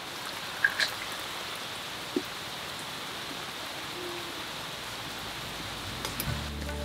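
Steady rain falling, an even hiss throughout, with a few light clicks about a second in and again near two seconds.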